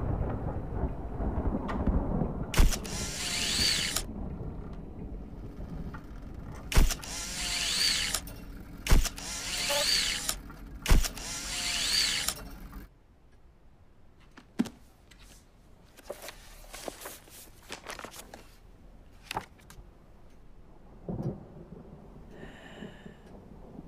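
Instant camera taking four photos: each shutter click is followed by the short whir of the motor pushing out the print. After that come only faint scattered clicks and handling sounds.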